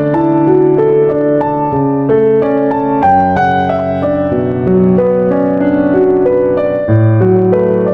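Background music: piano playing a gentle melody over sustained chords, notes changing about every half second.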